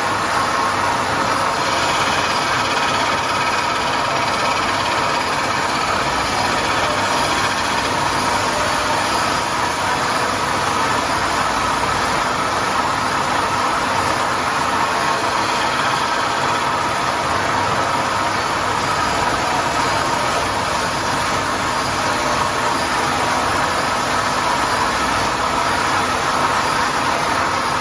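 Crankshaft grinder running steadily, its grinding wheel working a crankshaft: an even, unbroken machine noise with a faint steady whine.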